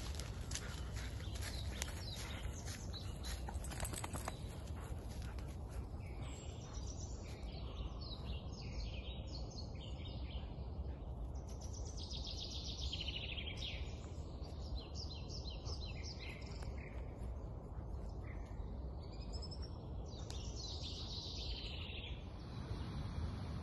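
Woodland songbirds singing: several birds with falling trills and runs of quick repeated high notes, over a steady low rumble. In the first few seconds come short scratching clicks from the dog digging in the soil.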